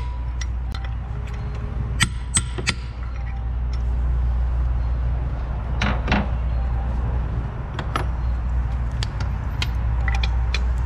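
Hammer striking a chisel three times in quick succession about two seconds in, staking the body of a knock sensor in its bore in the engine valley to grip its broken-loose core. Later a few scattered metallic clinks of tools, over a steady low hum.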